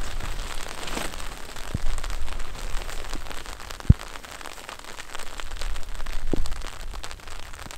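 Tent fabric rustling and crackling as it is handled and adjusted during pitching, with many small clicks and one sharp knock about four seconds in.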